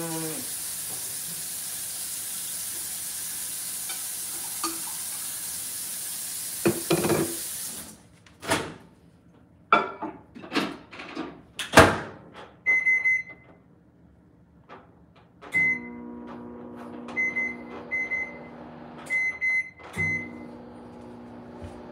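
A steady hiss for about eight seconds, then knocks and clatter of things being handled. A microwave oven's keypad beeps, and the oven runs with a steady hum while more short key beeps sound; the hum breaks off briefly near the end and starts again.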